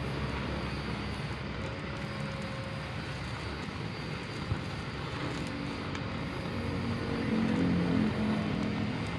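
Blowtorch burning steadily on a low flame, heating solder on an alternator rectifier's diode terminal. A low hum comes in near the end.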